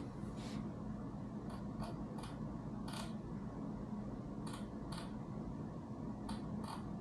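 About ten light, sharp clicks at irregular intervals over a steady low hum.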